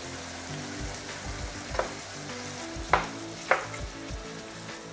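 Minced meat and tomato pulp sizzling steadily in a frying pan while a wooden spoon stirs them, the spoon knocking sharply against the pan three times in the second half.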